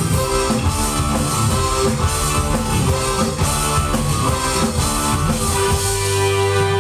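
Live rock band playing an instrumental passage with electric guitar and drum kit, the drums dropping out near the end as held guitar and keyboard notes ring on.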